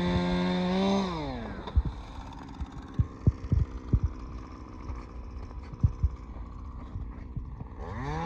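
Small engine running steadily, then dropping in pitch to a low idle about a second in, and revving back up near the end. A few sharp knocks sound during the quieter stretch.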